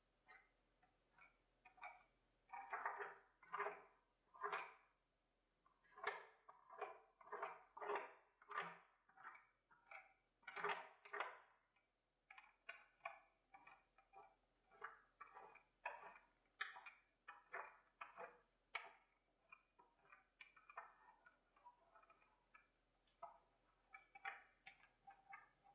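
Small lint-free paint roller worked in short, repeated strokes, about two a second, with a soft scratchy rolling sound. The strokes are louder for the first half and lighter after about twelve seconds.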